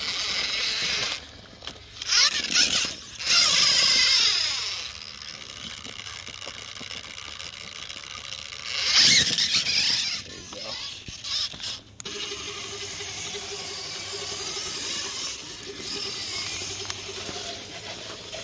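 Electric drive motors and gears of RC rock crawlers whining as they climb rock. The pitch rises and falls with the throttle in loud spurts about two to four seconds in and again about nine seconds in, then settles into a steadier, lower whine from about twelve seconds in.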